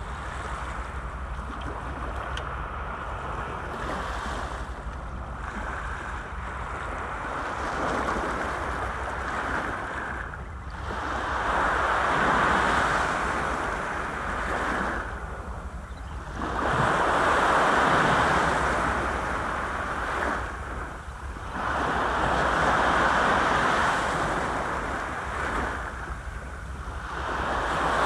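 Small sea waves breaking and washing up a sloping concrete seawall, the surf swelling and fading every four to five seconds. Wind rumbles on the microphone underneath.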